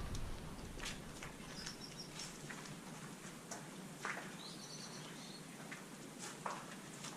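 Faint footsteps with scattered crunches and clicks, and two short, high bird chirps, one a couple of seconds in and another near the middle.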